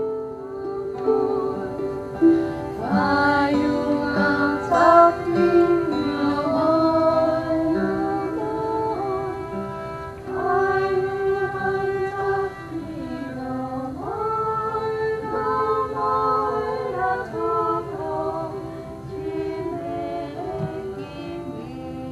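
Live violin playing a slow melody of long held notes with vibrato, over plucked harp notes.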